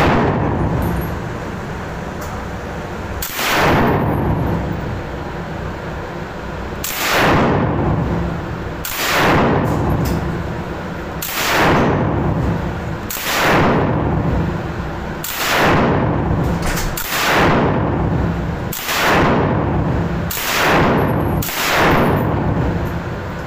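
Bren light machine gun firing about eleven single shots, spaced one and a half to three and a half seconds apart, each echoing on in the indoor range.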